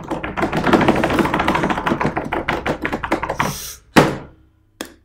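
Hands drumming rapidly on a desk as a drumroll, about a dozen quick taps a second, ending with a loud hit about four seconds in.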